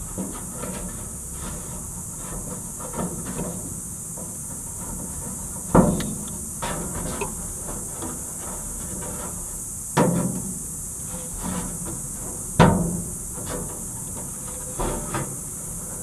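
Handling noise from working fan-motor wires with pliers against the sheet-metal cabinet of an air-conditioner condenser unit: scattered light clicks and three louder sharp knocks a few seconds apart. A steady high hiss runs underneath.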